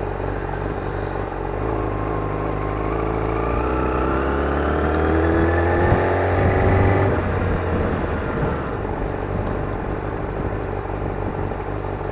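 Yamaha YZF-R6 600 cc inline-four engine pulling through town traffic, its pitch climbing steadily for about five seconds, then dropping away about seven seconds in as the throttle is closed, and running steadily after that.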